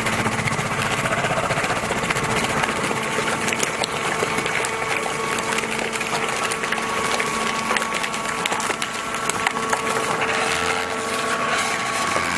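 Horizontal hydraulic baler running: a steady hydraulic pump hum with crackling and snapping as waste is compressed.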